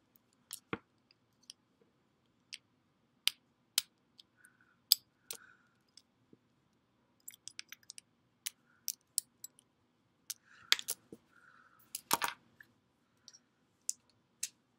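Irregular sharp clicks and taps of small plastic and metal parts as an electrical plug is taken apart and its terminal screws are worked, with a denser burst of handling about twelve seconds in. A faint low hum runs underneath.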